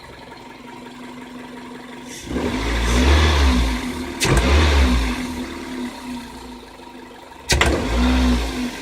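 Car engine idling, then revved sharply twice by stabbing the accelerator pedal; a single sharp metallic knock sounds with each blip. The owner cannot explain the knock and wonders whether poor AI-92 fuel or extreme cold of −53° is behind it.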